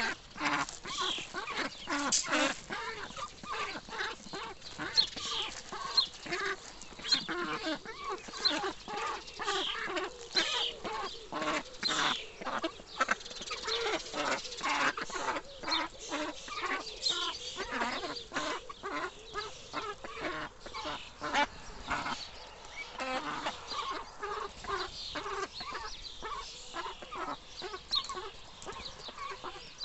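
A flock of ducklings peeping while they and adult ducks peck seed off the ground, with many quick clicks of bills throughout.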